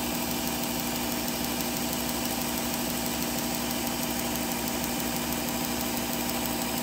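Work Sharp knife sharpener with the Ken Onion blade grinding attachment, its electric motor and abrasive belt running with a steady, even hum.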